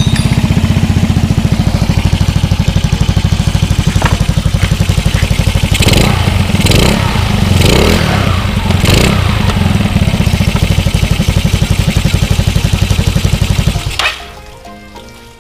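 Yamaha Mio Sporty scooter's single-cylinder four-stroke engine running with the CVT cover off and the drive belt and pulleys exposed, idling with a steady rapid pulse. It is revved a few times around the middle and shut off near the end. It is run so the drive belt seats back on the pulleys after new 8-gram rollers were fitted.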